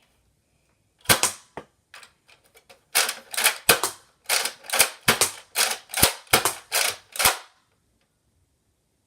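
Nerf blaster shooting foam darts: two shots about a second in, then a rapid string of a dozen or so sharp clacks with puffs of air from about three seconds in, stopping near the three-quarter mark.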